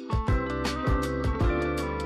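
Background music with a steady beat, with guitar.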